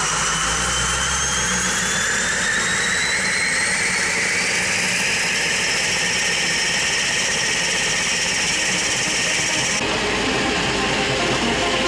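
Single-engine turboprop starting up, its turbine whine climbing steadily in pitch as the engine spools up, with engine noise underneath. About ten seconds in, the high whine cuts off abruptly, leaving a steady engine running sound.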